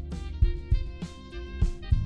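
Background music: guitar over a drum beat.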